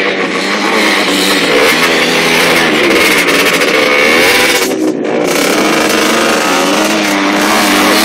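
Motocross dirt bike engines revving hard, the pitch rising and falling over and over as the riders work the throttle and shift gears.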